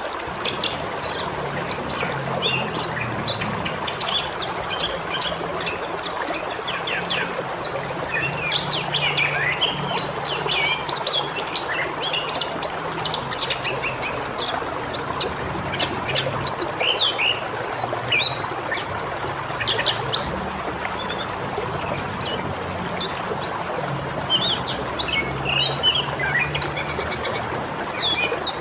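Wild birds chirping and singing in a dense, overlapping chorus of short, high, quick notes, with no pause. A steady outdoor hiss lies underneath.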